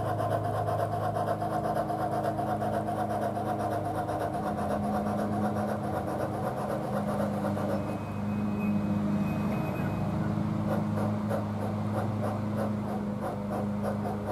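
Soundtraxx Tsunami sound decoder in a Bachmann Climax G-scale model locomotive, playing fast, even steam chuffing through the locomotive's speaker as it runs. A lawnmower engine runs steadily underneath.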